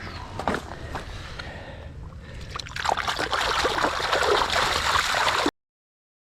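Water splashing and sloshing as a keepnet full of carp is emptied back into the pond, much louder from about three seconds in, then stopping abruptly.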